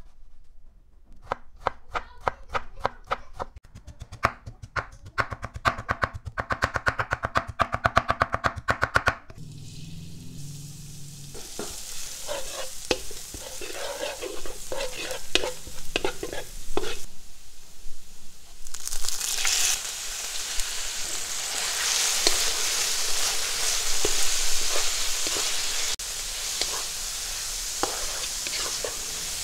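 A knife chopping tomato on a wooden cutting board: quick, regular knocks that speed up, for about the first third. Then minced garlic and shallots sizzle softly in oil while a spatula scrapes the pan, and about two-thirds of the way through this gives way to pieces of beef frying with a louder, steady sizzle as they are stirred.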